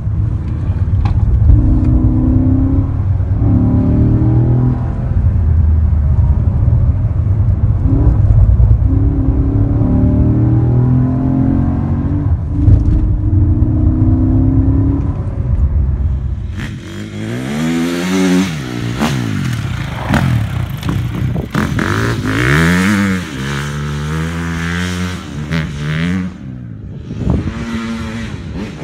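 A car engine running at speed, heard from inside the cabin as a steady low drone. About 16 s in it changes to a dirt bike's engine revving as the bike rides around, its pitch rising and falling several times.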